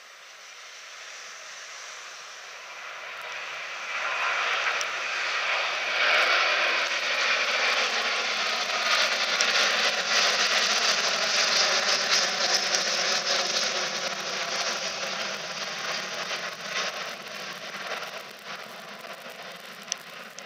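Airbus A330-200 twin-engine jet airliner at takeoff thrust, climbing out. The jet engine roar builds over the first four seconds, stays loud, then slowly fades as the plane climbs away.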